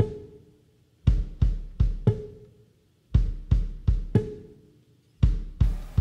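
Background music: a drum-kit beat, groups of four hits in quick succession repeating about every two seconds, with brief gaps between the groups.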